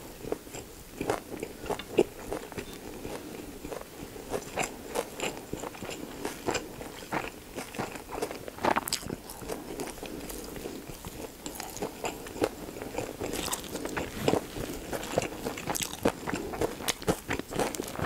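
Close-miked chewing of a mouthful of pork-belly gimbap (rice and seaweed roll with lettuce and pickled radish): wet mouth sounds with many irregular small crunches.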